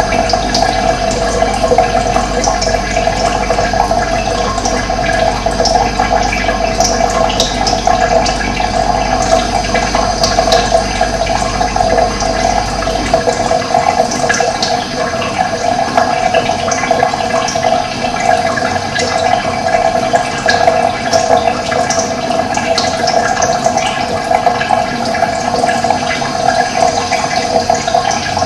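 Running water flowing steadily, with small scattered splashes.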